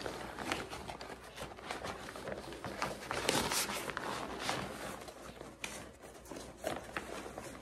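Nylon stuff sack rustling and scraping as it is worked over a rolled-up ultralight backpacking cot, in irregular handling strokes, loudest a little past three seconds in.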